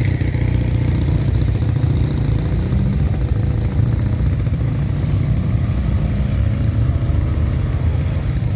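Motorcycle engine idling steadily, a loud low rumble with fast even pulsing.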